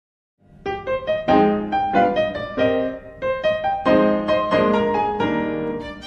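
Background piano music, a melody of separate notes that each fade after being struck, starting after a moment of silence about half a second in.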